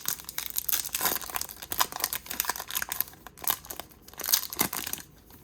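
A 2021 Bowman Hobby baseball card pack's wrapper being torn open and crinkled: a dense, irregular run of crackles that dies away near the end.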